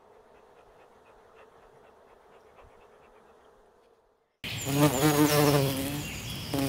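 Faint, steady hum of a honeybee swarm crawling into a cardboard hive box. About four seconds in it drops out for a moment, and a much louder buzz with a wavering pitch begins.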